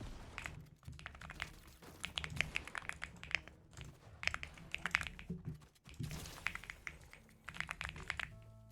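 Mechanical keyboard with linear switches being typed on in quick bursts of keystrokes, several clicks at a time with short pauses between. The keyboard is a LEOBOG Hi75 aluminium-case board fitted with Akko Creamy Yellow V3 switches.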